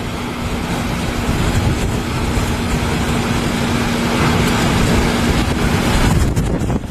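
Loud steady rushing noise with a steady low hum that cuts off about six seconds in.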